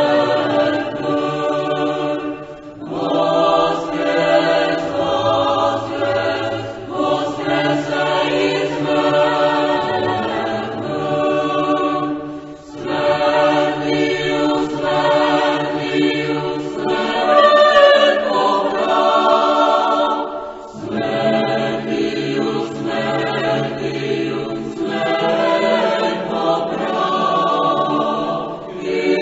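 Choir singing a Paschal hymn a cappella, held notes sung in phrases with brief breaks between them.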